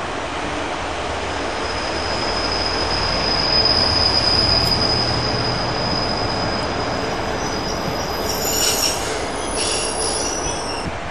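Two-car diesel multiple unit moving past at a station, its wheels giving a high, steady squeal for several seconds over a low engine rumble. Near the end come a few shorter, higher squeals.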